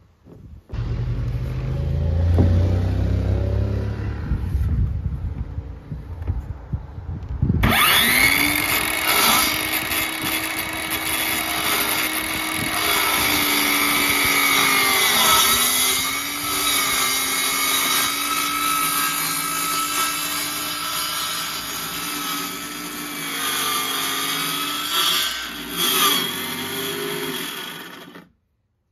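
A Ryobi 18V cordless jigsaw starts suddenly about eight seconds in and runs steadily, cutting an opening in a plastic ammo can lid. Its pitch dips briefly a few times as the blade bogs in the cut, and it stops just before the end. A lower, uneven motor sound runs for several seconds before it.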